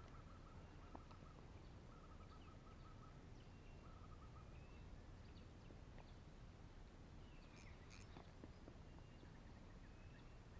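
Faint outdoor ambience over a low rumble: a rapid pulsed trill repeats in short runs through the first half, with a few short high chirps and one brief sweeping bird call about eight seconds in.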